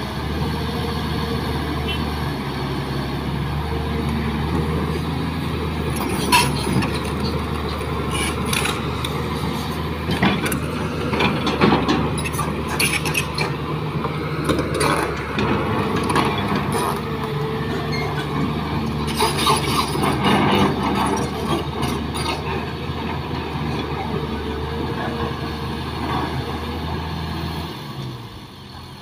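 Kobelco hydraulic excavator's diesel engine running steadily as it digs and loads soil, with bursts of clattering and knocking from the steel bucket and dirt and stones dropping into a dump truck bed for much of the middle. Near the end the sound drops in level and the engine note changes.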